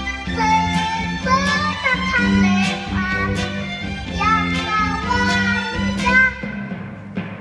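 A five-year-old child sings a melody over instrumental backing. The voice drops out about six seconds in, leaving the accompaniment playing more quietly.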